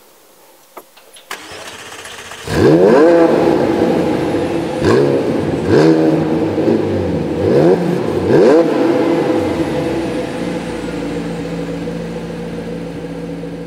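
McLaren 765LT's twin-turbo V8 starting up about two and a half seconds in with a flare of revs, then blipped sharply a few times, each rev rising and falling, before settling into a steady idle.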